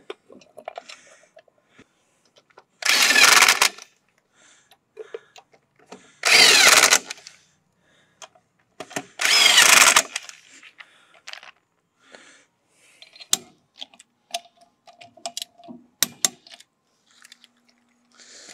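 Corded electric impact wrench running lug nuts onto a wheel, in three bursts of about a second each, the motor rising in pitch as it spins up. Small clicks and clinks of lug nuts and the socket come between the bursts.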